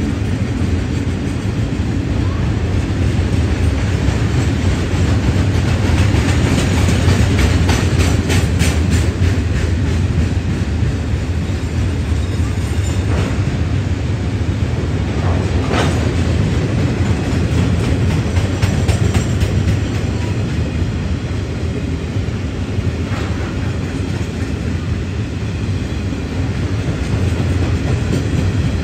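Steel-coil-laden freight wagons rolling steadily past: a continuous low rumble with rapid clicking of wheels over rail joints, thickest about a quarter of the way in.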